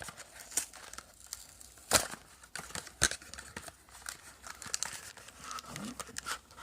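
Packaging of a baseball card repack box being torn and crinkled open by hand: irregular sharp crackles and tearing, loudest about two and three seconds in.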